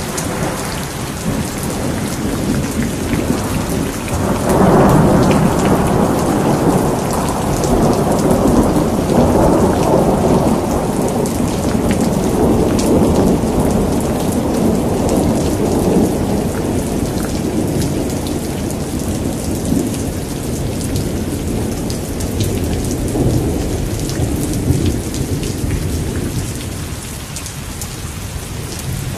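Steady rain with a long roll of thunder that swells about four seconds in and slowly dies away over the next twenty seconds.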